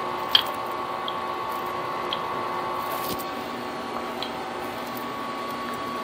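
Light metallic clicks, about one a second, as a mini lathe spindle carrying a tapered roller bearing is worked into its headstock, over a steady hum.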